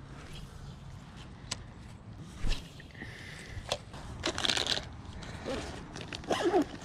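Rustling, crinkling and light clicks of fishing gear being handled and packed into a canvas tackle bag, with a louder stretch of rustling about two-thirds of the way in.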